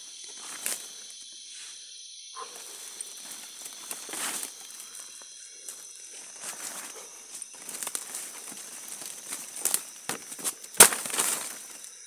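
Footsteps and brushing through dry leaf litter and undergrowth: irregular rustling and crackling of leaves and twigs, with a sharp crack near the end followed by a burst of rustling. A steady high-pitched insect drone continues behind.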